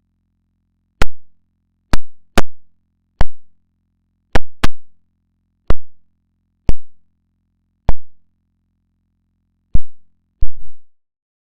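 About eleven sharp, loud clicks at uneven intervals, some coming in quick pairs, over a faint low hum. The clicks and hum stop shortly before the end.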